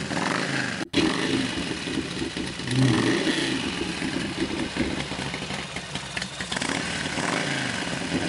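Harley-Davidson Sportster 1200's air-cooled V-twin engine running, heard from a played-back video. The sound cuts out briefly about a second in, where the playback jumps ahead, and is louder for a moment about three seconds in.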